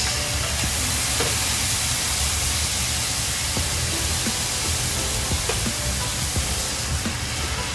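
Food sizzling hard in a frying pan, a steady hiss with small crackles, over background music.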